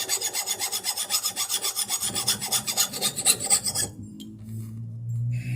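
Metal file rasping in rapid back-and-forth strokes along a blade edge, taking off the burrs left by a grinder. The strokes stop abruptly about four seconds in, leaving a low steady hum.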